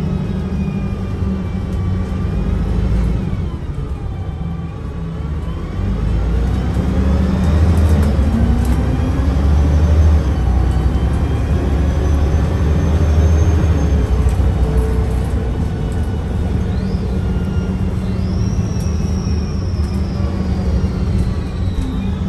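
Mercedes-Benz O405NH bus with a Voith automatic gearbox running: the engine rumbles while the transmission whines, its pitch gliding up and down with speed. The engine pulls harder from about six seconds in with several rising whines, and near the end a high whine rises and then slides slowly down.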